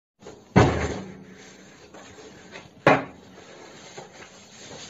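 Cardboard shoebox being set on a table and its lid opened: two sharp knocks about two seconds apart, with light handling rustles between them.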